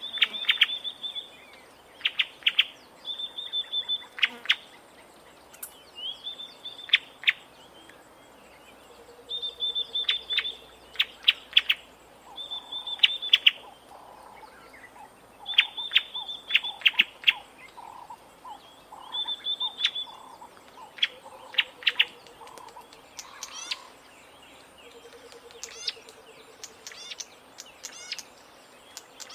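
Bleating warbler calling: repeated high phrases, each a short held note followed by a quick run of sharp clicking notes, every couple of seconds. A fainter low trill comes in now and then, and the phrases give way to faint high ticking near the end.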